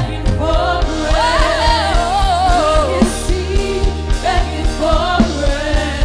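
Women singers' voices in a gospel worship song, sung into microphones over instrumental backing with a steady beat.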